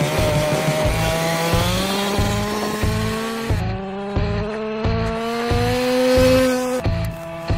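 Small two-stroke petrol engine of a 1/5-scale RC trophy truck running at speed, its pitch rising and falling with the throttle, over background music with a steady beat.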